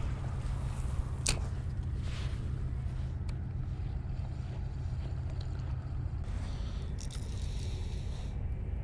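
Casting and retrieving with a spinning rod and reel on a body-worn camera: steady low rumble from handling and wind on the microphone, a sharp swish about a second in, and a stretch of hissing whir near the end.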